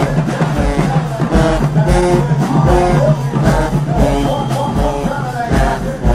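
Marching band playing: brass, including sousaphones, holding and moving between notes over repeated low bass drum hits.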